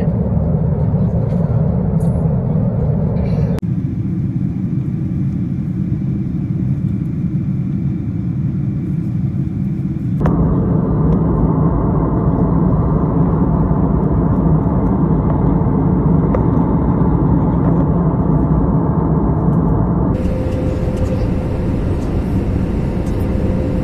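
Jet airliner in cruising flight: a steady roar of engines and rushing air. It comes in several spliced recordings that change abruptly about 3.5, 10 and 20 seconds in, and the last one carries a steady hum.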